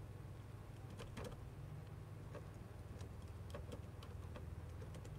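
Faint, irregular clicks of laptop keys as a password is typed, over a low steady hum.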